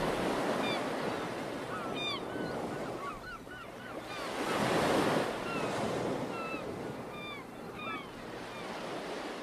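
Small waves washing in on a shoreline, with songbirds chirping in short, quick notes over them; one wave swells louder about five seconds in.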